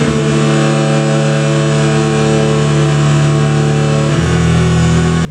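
Music: a loud, sustained droning chord with no beat, shifting to a new chord about four seconds in.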